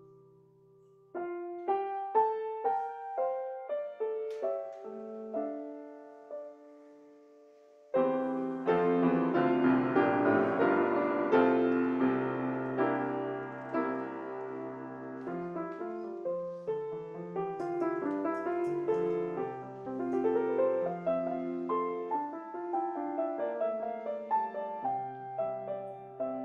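Grand piano playing. Separate notes and light chords come first, then from about eight seconds in fuller, louder chords follow one another without a break.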